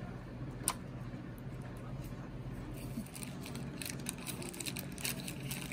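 A screwdriver and a small scooter brake light switch being handled by hand: one sharp click about a second in, then a run of light clicks and rustling from about halfway through, over a steady low hum.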